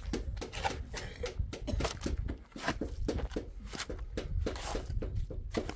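Shovel scraping and scooping through wet cement mortar on gritty ground: a run of short, irregular scrapes and knocks over a steady low rumble.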